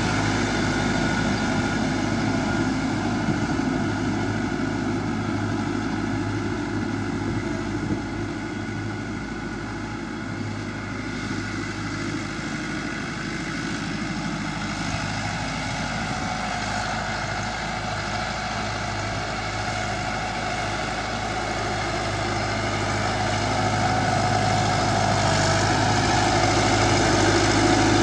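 Massey Ferguson 385's four-cylinder diesel engine running steadily under load while the tractor pulls a tine cultivator through the soil. The sound grows fainter as the tractor moves away and louder again as it comes back close.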